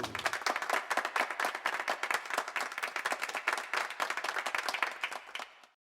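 Applause: many hands clapping in a dense, irregular patter that cuts off abruptly about five and a half seconds in.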